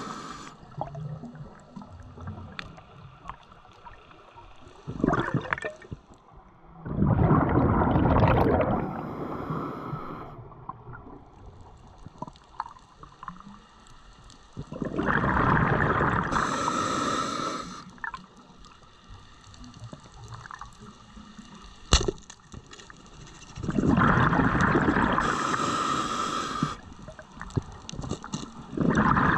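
Underwater bubbling and gurgling from a diver's exhaled air, in long bursts about every eight or nine seconds with quieter water noise between. A single sharp click comes a little after twenty seconds.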